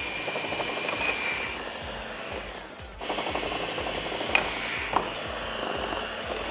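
Electric hand mixer running, its beaters whisking butter, sugar and eggs in a glass bowl, with a short quieter dip a little before halfway and two sharp clicks in the second half.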